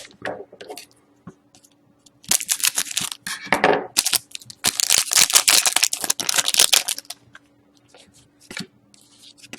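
Hockey card packs being torn open and their wrappers crinkled and rustled while the cards are handled. The rustling comes in two dense spells, about two seconds in and again about five seconds in, with a few light clicks around them.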